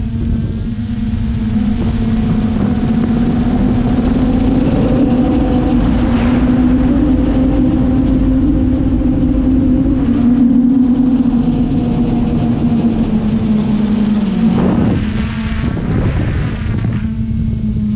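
Quadcopter drone's motors and propellers humming steadily, heard from its onboard camera along with wind rush. The pitch rises a little midway and dips briefly near the end as the throttle changes.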